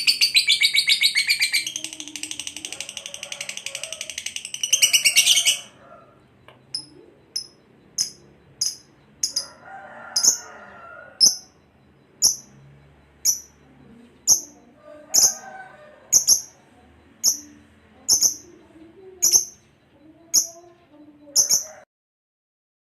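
Lovebird singing a fast, shrill, chattering trill for about five seconds, then single sharp high chirps about once a second.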